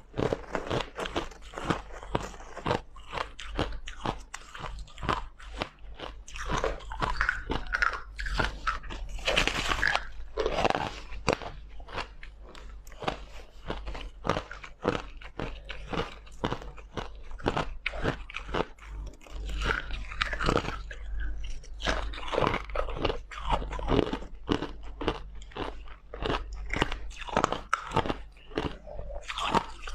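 Crushed ice being bitten and chewed close to the microphone: a fast, irregular run of sharp crunches, several a second, without a break.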